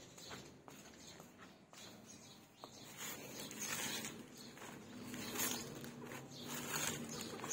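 Cabbage leaves rustling and crackling as they are handled in a plastic basket, with a few light clicks before the rustling grows denser about three seconds in.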